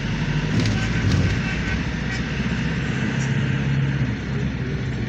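Road traffic in slow city driving: a steady low engine hum with the noise of surrounding vehicles.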